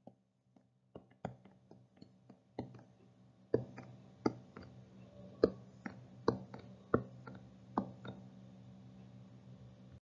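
Irregular light clicks and taps, more frequent from about three and a half seconds in, with faint scraping between them. These come from a pen stylus touching and moving over a writing surface as a formula is handwritten stroke by stroke. A faint steady electrical hum runs underneath.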